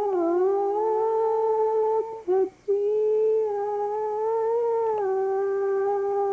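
A voice humming long, held notes, with a short break for breath about two and a half seconds in.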